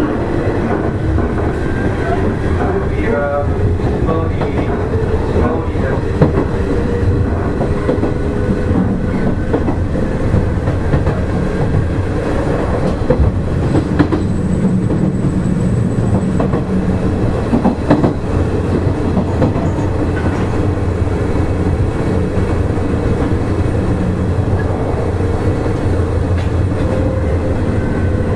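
Nishitetsu 5000 series electric train running, heard from inside the car: a steady rumble of wheels on rail with occasional rail-joint clicks and a motor whine. The whine rises in pitch near the end.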